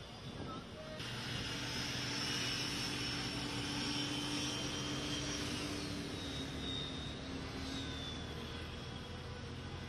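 Steady mechanical drone like an engine, with a high whine over it, starting abruptly about a second in; the whine falls slightly in pitch later on.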